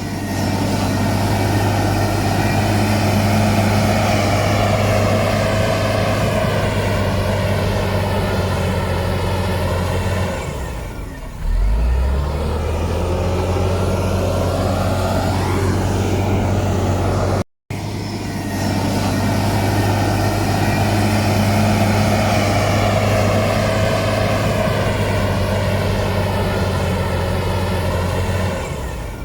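Heavy diesel engine of earth-moving machinery running hard under load. Its note sags and drops about ten seconds in, then picks up again with a rising whine. There is an abrupt cut to silence just past halfway, and after it the engine runs under load again.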